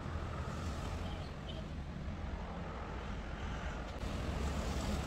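Steady low background rumble with a faint hiss, with no distinct events.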